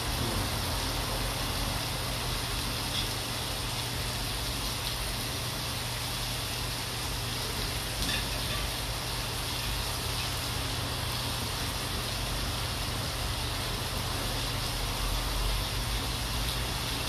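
Skewered meat sizzling on a grill pan over a tabletop burner: a steady hiss with a low hum beneath it, and a few faint clicks of chopsticks against the pan.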